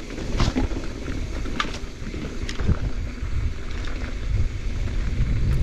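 Wind buffeting a helmet- or chest-mounted action camera as a mountain bike rolls fast downhill, with knobby tyres crunching over dirt and gravel and short knocks and rattles from the bike over bumps.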